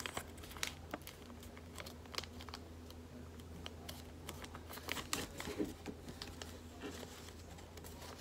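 A sheet of origami paper being folded and creased by hand: scattered soft crinkles, rustles and light taps, over a faint steady low hum.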